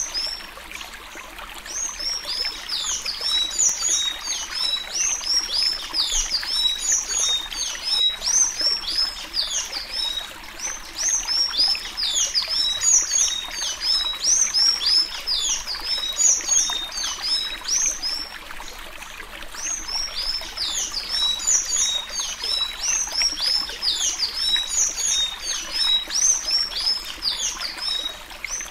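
Sanhaço (blue tanager) singing the Alagoas 'suí suí' song: fast, continuous runs of high, squeaky, sliding notes. The song lulls briefly near the start and again about two-thirds of the way through.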